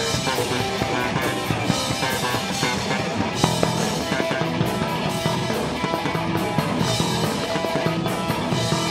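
Live rock band playing with electric guitars and a drum kit, the cymbals ringing out repeatedly.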